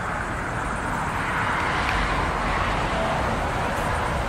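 Road traffic noise: a passing car's tyre and engine noise that swells to a peak about two seconds in.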